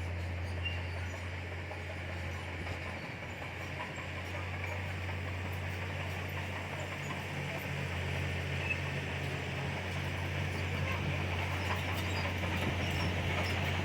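Heavy diesel earthmoving machinery running steadily with a deep engine hum and a rattly mechanical noise over it, growing a little louder toward the end.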